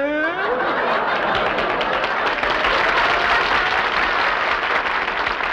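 Studio audience laughing and applauding in a sustained burst, starting as a man's drawn-out word trails off.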